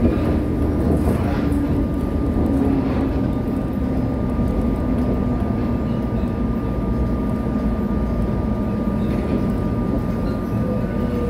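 Inside a refurbished resistor-controlled electric multiple-unit train on Seoul Subway Line 1 while it runs: a steady rumble of wheels and running gear, with a low hum that slowly drops in pitch and a faint steady high whine.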